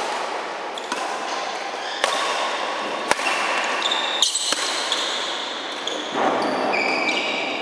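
Badminton rally in a large echoing hall: sharp racket-on-shuttlecock hits about once a second, with high squeaks of shoes on the court floor in the second half.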